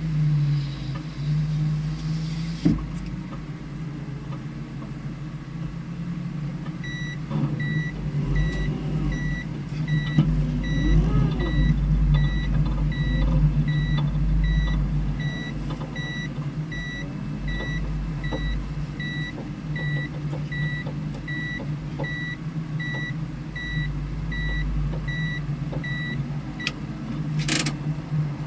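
A vehicle engine idling steadily. From about seven seconds in until near the end, an electronic beep repeats evenly, a little more than once a second. A short hiss comes just before the end.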